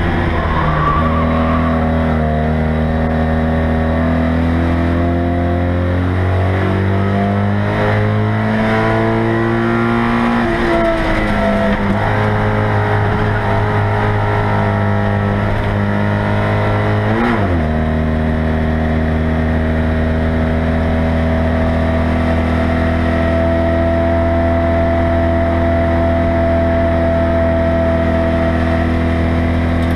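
Citroën 2CV race car's air-cooled flat-twin engine running hard, heard from inside the stripped cabin. Its note climbs slowly, drops and picks up again about eleven seconds in, and dips sharply for a moment at about seventeen seconds.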